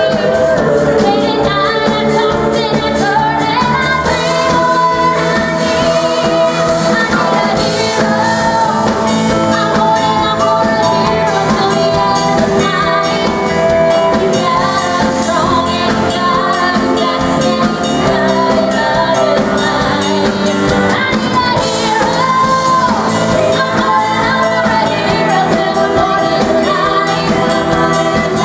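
Live pop band playing, with female lead vocals singing over a full backing.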